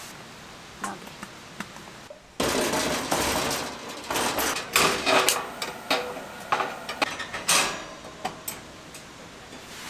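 Irregular knocks and clatters of hard objects being handled. They start suddenly a couple of seconds in, after a quieter stretch with a few faint clicks, and thin out near the end.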